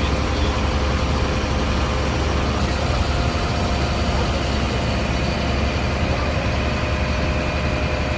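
Fire engine idling steadily: a low, even engine rumble with a faint steady hum above it.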